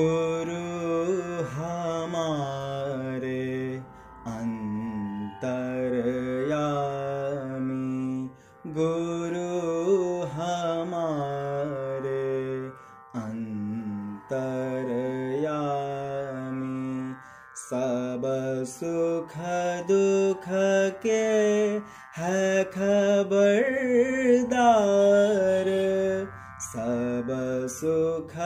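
A man singing a slow devotional bhajan solo, in melodic phrases with short breaths between them, over a faint steady drone.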